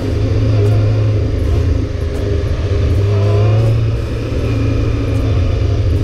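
Honda CBR600F4's inline-four engine running under way, with a steady low engine note that rises and dips slightly.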